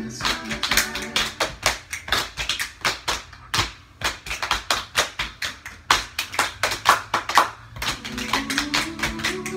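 Body percussion: several people clapping and patting their chests and laps in a quick, tight rhythm, as the percussion break of an a cappella song.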